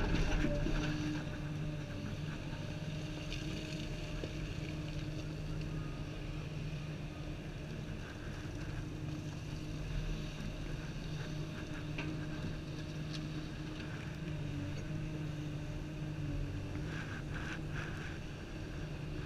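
Komatsu 350 excavator's diesel engine and hydraulics running steadily, heard from inside the operator's cab as the boom and bucket are worked.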